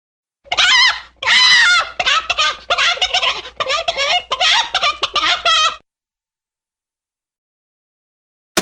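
Cartoon sound effect of rapid, warbling, bird-like squawking and gabbling, a run of quick wobbling cries lasting about five seconds.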